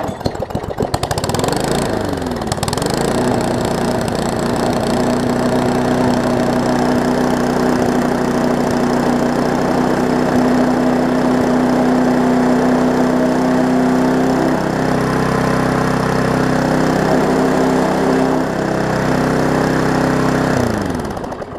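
Briggs & Stratton Classic push-mower engine catching and revving up in the first couple of seconds, then running at a steady speed, and winding down as it is shut off near the end. The owner says it is running a little fast, "on the hot side", after a carburettor rebuild and new governor springs.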